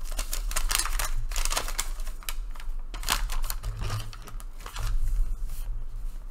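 A folded paper instruction sheet being unfolded and smoothed flat on a table, rustling and crackling irregularly, with the crinkle of a plastic parts bag being pushed aside.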